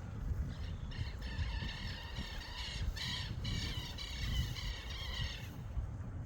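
A bird calling over and over for about five seconds, starting about half a second in, over a steady low rumble of wind on the microphone.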